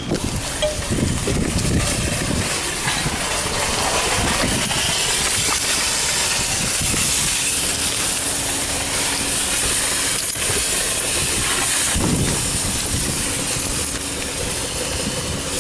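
Wire shopping cart being pushed along, its wheels rolling and the metal basket rattling in a steady, continuous clatter.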